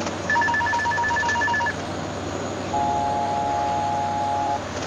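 ATR 42 cockpit aural warnings going off over the steady drone of the turboprop cockpit: a rapid string of short electronic beeps, about eight a second for a second and a half, then about a second later a steady two-note tone lasting about two seconds. They sound during an engine failure caused by fuel starvation.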